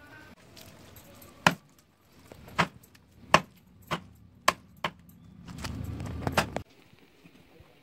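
A cleaver chopping raw chicken on a wooden stump chopping block: about eight sharp chops, spaced half a second to a second apart. About five and a half seconds in there is a second of low rumbling noise, with two quick chops on top of it.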